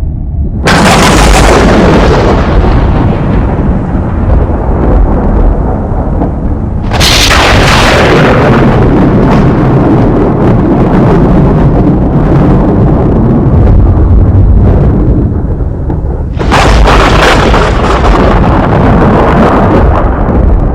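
Three loud booms, each starting suddenly and trailing off into a long low rumble, coming about six and nine seconds apart.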